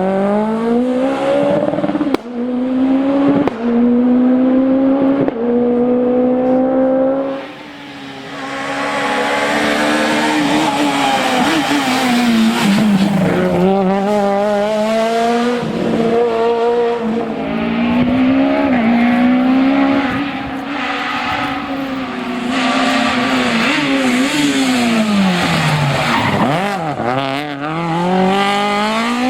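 Citroën C2 rally car's high-revving four-cylinder engine at full throttle on a stage, climbing through the gears with sharp breaks at each quick shift. It lifts off, then revs up and falls again through braking and downshifts, with tyre squeal in places.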